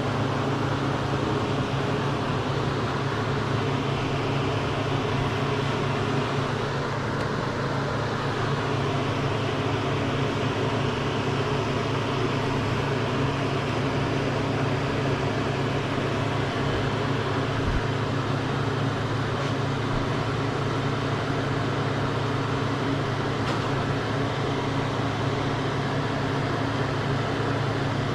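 Steady low drone of a car's engine and road noise heard inside the cabin, a few held hum tones under an even rushing haze, unchanging throughout.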